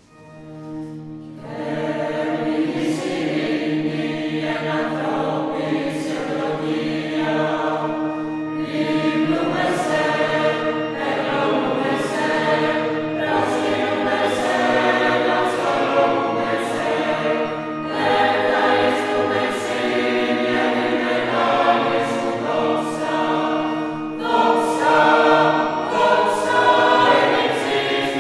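Church choir singing a hymn in long held phrases, fading in over the first second or two.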